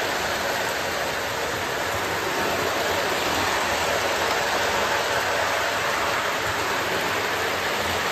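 Toy electric trains running on metal three-rail track: a steady, even whirring rumble with no breaks.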